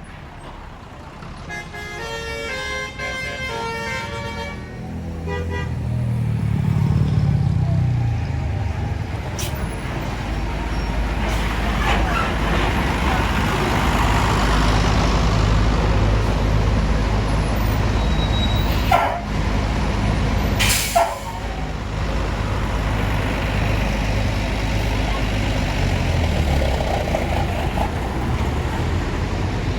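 A bus's multi-tone telolet horn plays a short tune of stepped notes for a few seconds. Then the bus's engine runs loud as it passes and keeps rumbling steadily, with two brief sharp bursts of hiss about two-thirds of the way through.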